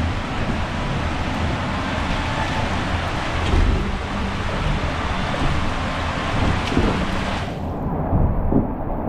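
Rushing water and a raft sliding through a waterslide tube, with occasional low thumps. About 7.5 seconds in, the hiss cuts off abruptly and the sound turns muffled.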